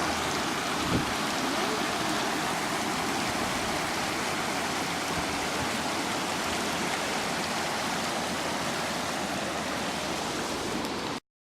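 Steady rushing of water with no change in strength, which cuts off abruptly near the end.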